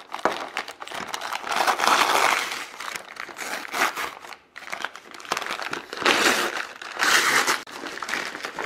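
Paper mailing bag being torn open and crumpled by hand, in irregular rustling bursts. Near the end the plastic-wrapped contents crinkle as they are handled.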